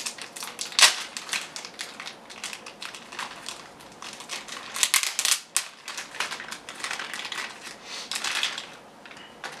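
Thin clear plastic bag crinkling and crackling as fingers work it open, with irregular crackles throughout and the sharpest about a second in.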